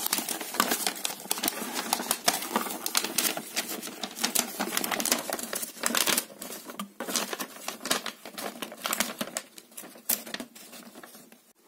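A folded paper instruction leaflet being unfolded and handled, with quick dry rustling and crackling of paper that thins out near the end.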